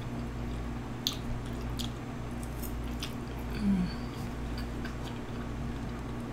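Close-miked chewing: wet, squishy mouth sounds with a few sharp clicks, and a short low hum of enjoyment a little past halfway.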